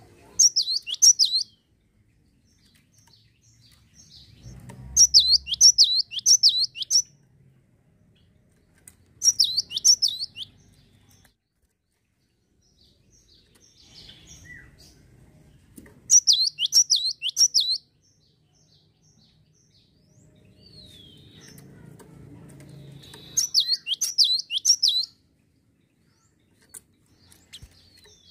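Cinereous tit (gelatik batu) singing: five bouts of quick, repeated high falling notes, each lasting one to two seconds, separated by pauses of a few seconds.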